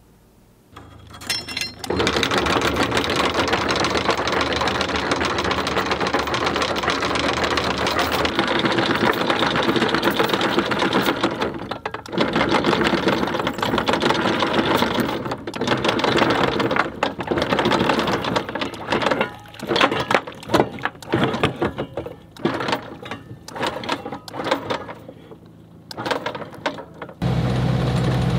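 Anchor chain being hauled aboard, a dense metallic rattle that is steady at first, then breaks up into short stretches with gaps as the anchor comes up. Near the end a low engine hum comes in.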